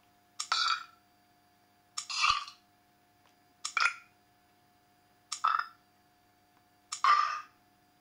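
Five short recorded burp sounds played one at a time from a burp soundboard app through a tablet's small speaker, about one every second and a half, each starting sharply. A faint steady hum runs underneath.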